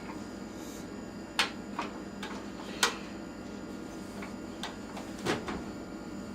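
A handful of short sharp clicks and light knocks, a second or so apart, from a child handling a microwave oven's door and controls.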